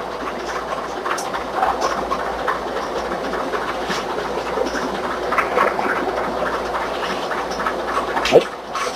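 Restaurant kitchen background noise: a steady rushing hum dotted with irregular clicks and clatter, and a louder sharp knock near the end.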